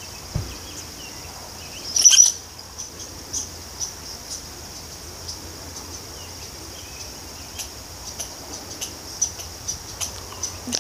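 Evening outdoor ambience: a steady high insect trill with scattered faint bird chirps, and one brief loud chirp about two seconds in.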